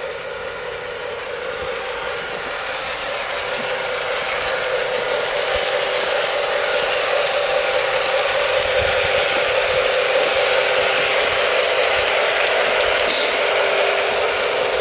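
Lionel LionChief RS3 model diesel locomotive running on garden-railway track with its freight cars, a steady mechanical running noise that grows louder over the first several seconds. A brief high squeak comes near the end.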